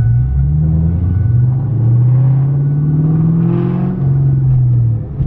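Car engine heard from inside the cabin while driving, its pitch climbing steadily for a few seconds as it accelerates, then dropping about four seconds in as for a gear change.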